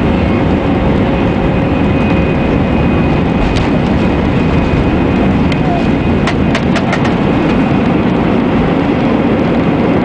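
Airbus A319-111 cabin during the take-off roll: CFM56 engines at take-off thrust with a steady whine over a heavy rumble of the wheels on the runway. A few sharp clicks come through in the middle.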